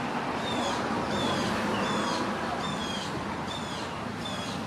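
A bird calling repeatedly in wetland: short high notes, each dipping slightly in pitch, about one a second over a steady background hiss.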